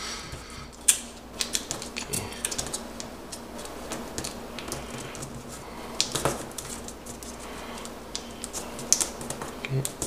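A square of origami paper being folded and its creases pressed tight by fingers on a tabletop: irregular paper clicks and rustles, with sharper clicks about a second in, around six seconds in and near nine seconds.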